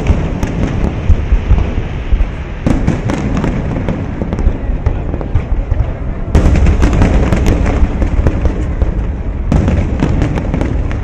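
Aerial fireworks shells bursting in a dense, continuous barrage of overlapping booms and crackles, growing heavier about three seconds in and heaviest from about six to nine seconds.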